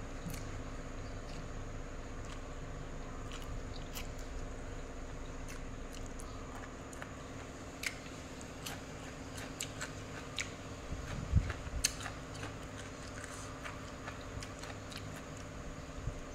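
Close-up chewing and biting of a mouthful of Thai cucumber salad with rice noodles, with wet mouth clicks and smacks scattered throughout and a couple of louder ones a little past two-thirds in. A steady low hum runs underneath.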